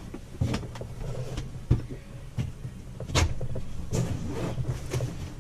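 A few sharp knocks and clunks, the loudest about three seconds in, over a low, uneven hum.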